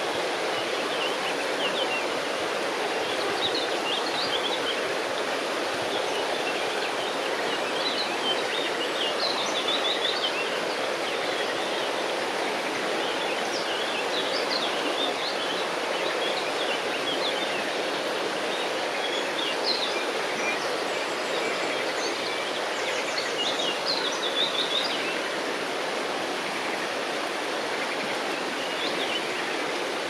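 Steady rush of flowing river water, with small birds chirping now and then over it.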